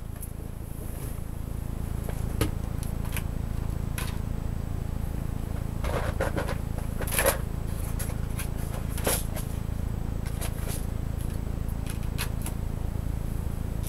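Steady low hum with scattered knocks and clatters of someone rummaging through things, the loudest a little past halfway.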